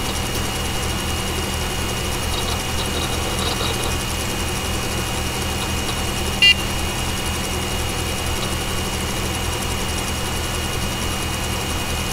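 Desktop PC's CPU, case and power-supply fans running with a steady hum, and a single short beep from the computer's internal speaker about six and a half seconds in.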